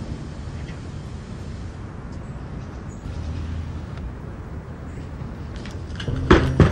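Low steady rumble of a car's engine idling, heard inside the cabin, with a few faint clicks and rustles; near the end two loud bangs come about a third of a second apart.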